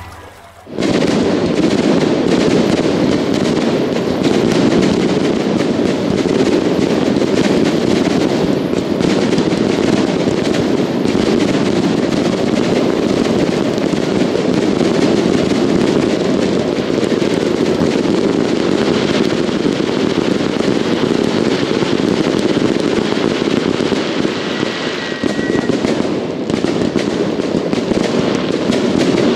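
Fireworks grand finale barrage: a dense, unbroken run of shell bursts and crackling with no gaps, starting abruptly about a second in.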